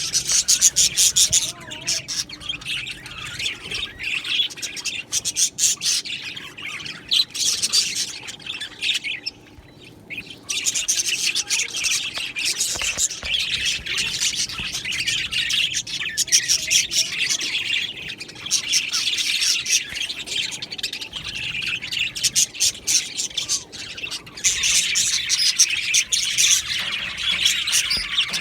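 A flock of budgerigars chattering and chirping without pause, many birds calling at once, with a brief lull about nine seconds in.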